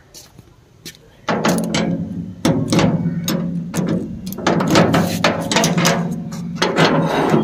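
A key working an old padlock on a sheet-metal door: loud rattling and clicking of the lock and hasp against the metal, starting about a second in, with the door ringing under the knocks.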